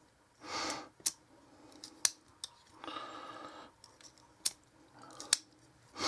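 Parts of a disassembled folding knife being handled: several sharp metallic clicks with short, soft scraping sounds in between.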